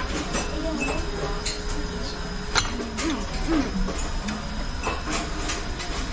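Restaurant dining-room noise: a steady low hum with faint murmur of voices and scattered light clinks of chopsticks against ceramic bowls, one sharper clink about two and a half seconds in.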